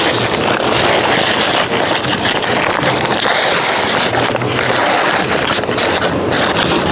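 Kraft paper wrapping crinkling and rustling as a paper-wrapped potted plant is pulled up out of a divided cardboard shipping box, close to the microphone, with a steady dense crackle throughout.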